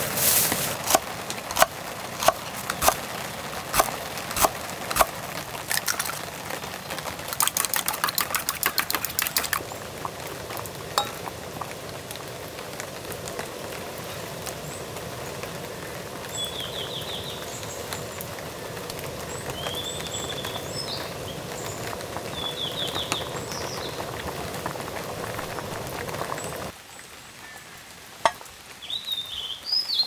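Knocks and clinks of utensils and food against a stainless steel camping pot, including a quick run of clinks as it is stirred, then the steady hiss of the pot cooking on a gas camp stove. A few short bird chirps are heard over the middle.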